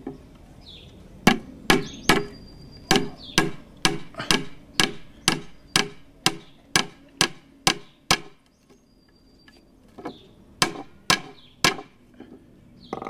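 Claw hammer striking a small metal staple into a wooden batten, fixing a wire element in place: a run of quick blows at about two a second, a pause, then three more blows near the end.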